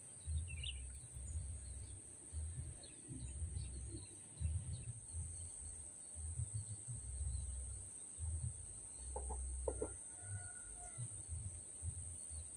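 Faint outdoor ambience: chickens clucking now and then, over an uneven low rumble that comes and goes and a steady high whine.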